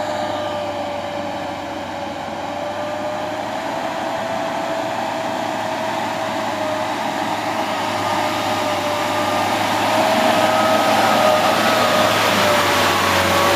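Loaded Isuzu light truck climbing a steep gravel grade, its engine running with a steady whine that wavers slightly in pitch. It grows louder as the truck draws near.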